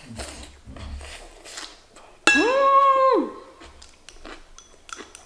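A woman's high-pitched hum of enjoyment while eating, rising, held for about a second, then falling away. Around it come faint clicks of chopsticks against a porcelain rice bowl and soft chewing.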